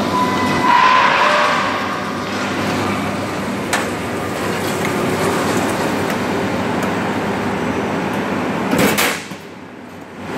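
CZ purlin roll-forming machine running, its forming rolls working steel strip with a steady mechanical hum. A brief high whine sounds in the first second or so, and about nine seconds in there is a short loud burst of noise, after which it runs quieter for a moment.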